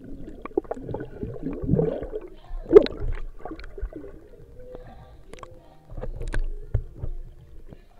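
Muffled gurgling and bubbling of water heard through an action camera held underwater, with scattered knocks and one sharp, loud knock a little under three seconds in.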